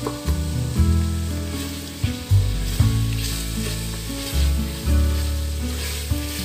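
Meat and masala sizzling in oil in a steel pot while a spoon stirs it. A music track runs underneath, with low bass notes that change every half second to a second.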